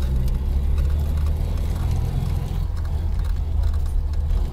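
UAZ-469's four-cylinder petrol engine running off-road, a steady low drone.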